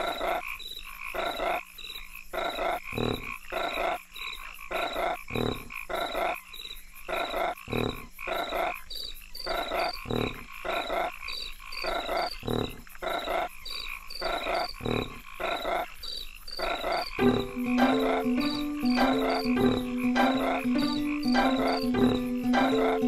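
Cartoon frog croaks repeating in an even rhythm, about two a second. About two-thirds of the way through, a music intro with steady low notes comes in under the croaks and gets louder.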